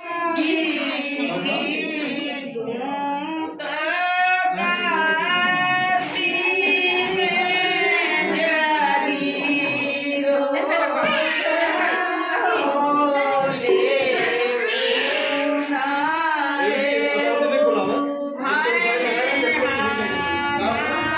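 Women's voices singing a song, the pitch bending and wavering with ornamented turns.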